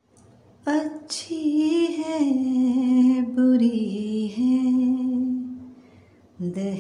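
A solo voice singing a slow, drawn-out line without words that winds gradually downward in pitch. It begins about a second in, fades out near the end, then starts a fresh phrase.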